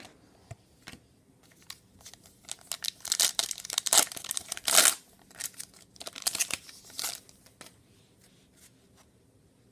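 Trading card pack wrapper being torn open and crinkled by hand, a few seconds of dense crackling. It is loudest in the middle and stops after a few seconds.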